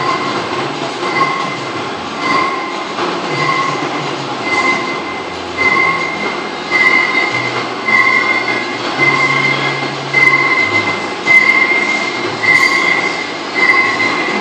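Romi Centur 30D CNC lathe cutting a metal part, with a high-pitched metallic squeal that swells and fades about once a second over steady machine noise.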